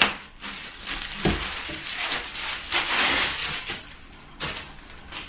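Plastic wrapping crinkling and rustling as a sari is handled and pulled out of its packaging, with a soft thud about a second in and a sharp click a little past four seconds.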